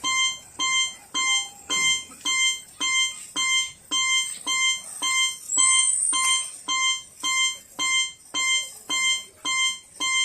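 Miniature railroad crossing's warning bell ringing the Japanese "kan-kan" alarm, an even run of identical bright ringing strikes about two a second. A brief high squeal rises over it about halfway through.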